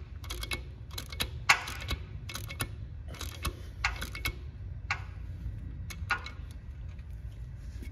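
Socket ratchet clicking in short, uneven runs as a bolt with flats filed on its sides is worked into a tight threaded hole to chase powder coat out of the threads, over a steady low hum.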